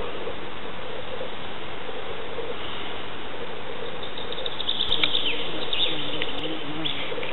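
Outdoor meadow ambience with a steady hiss and a faint low pulsing hum, and a burst of bird chirps and twitters from about four and a half to six and a half seconds in.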